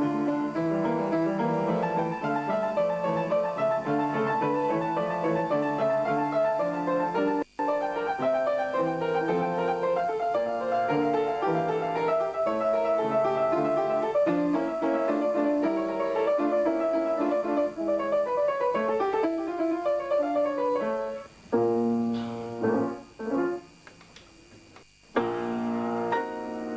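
Förster upright piano played solo: a continuous flow of notes and chords. Near the end, the playing breaks into a few short, separate chords with silent gaps between them, then resumes in full.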